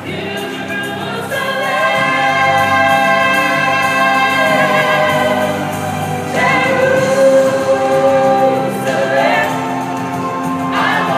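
A small a cappella group of women and men singing in harmony without instruments, holding long chords that move to new notes every few seconds.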